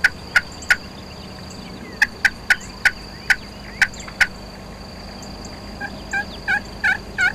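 Turkey calling: sharp single clucks at uneven intervals through the first half, then a series of louder yelps that builds from about six seconds in.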